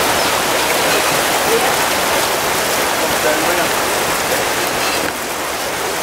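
Steady rush of splashing water as a paddle boat's wheel churns the river.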